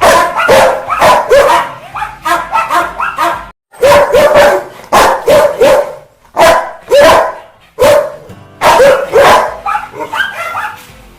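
Rottweiler barking in quick, loud volleys, an angry series of deep barks that breaks off briefly about three and a half seconds in and again twice later before starting up again.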